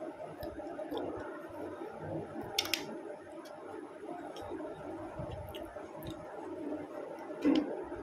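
Close-miked eating sounds: fingers mixing rice on a steel plate, with soft chewing and small scattered clicks, and a brief sharper clink about two and a half seconds in. A steady low hum runs underneath.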